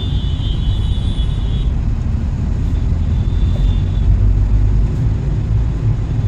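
Car cabin noise while driving: a steady low rumble of engine and road noise heard from inside the car.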